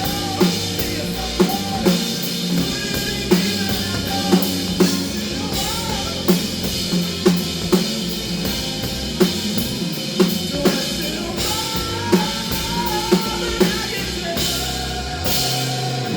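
Live band playing an instrumental passage, led by a drum kit keeping a steady beat with sharp snare hits over bass and wavering sustained melodic lines.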